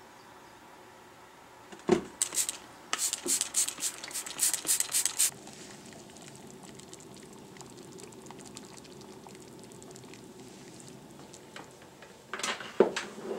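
Liquid dripping and splashing back into a bucket as a freshly dyed anodized aluminum part is lifted out of the dye bath: a knock, then a quick run of sharp drips for about three seconds. After that a faint steady simmer of boiling sealing water, and a short clatter and splash near the end.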